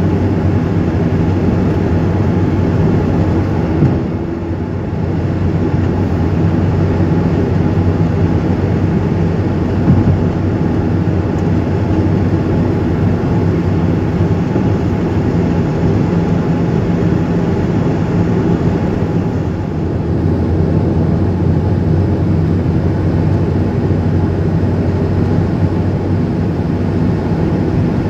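Car engine and tyre noise heard from inside the cabin while driving at highway speed: a steady low drone with road rumble, dipping briefly twice.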